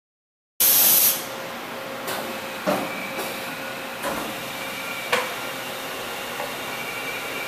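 A horizontal machining center and its shop running: a short, loud burst of air hiss, then a steady mechanical hum with a faint whine and several sharp clunks.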